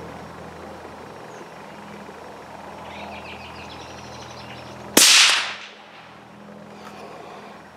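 .17 HMR rifle shot: a single sharp crack about five seconds in, fading out over about half a second.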